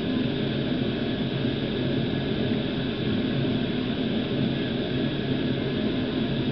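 Steady low mechanical drone with an even hiss over it, holding the same level without a break.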